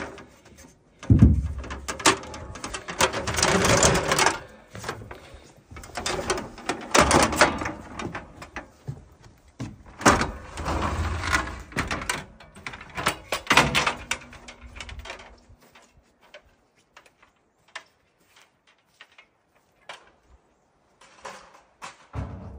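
A run of irregular knocks, scrapes and clatter, busy for about fifteen seconds and then thinning to scattered faint clicks.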